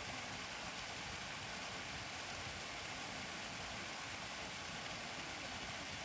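Small waterfall in a valley stream pouring into a shallow, rocky pool: a steady, even rush of falling and splashing water.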